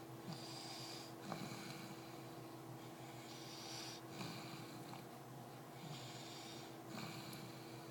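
A baby snoring in sleep, a rasping snore with each breath, repeating every second or two.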